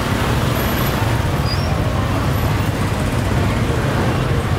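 Steady low rumble of street traffic with general market background noise.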